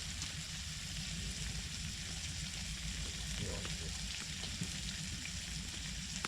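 Food sizzling steadily as it cooks, over a low rumble.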